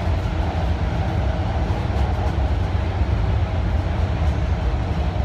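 Hong Kong MTR metro train running between stations, heard from inside the passenger carriage as a steady low rumble.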